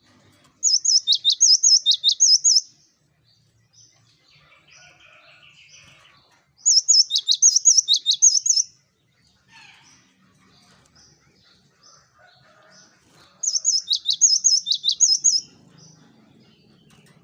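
Cinereous tit (gelatik batu) singing: three loud bursts of about two seconds each. Each burst is a fast run of repeated high, ringing notes, with faint scattered chirps in the gaps.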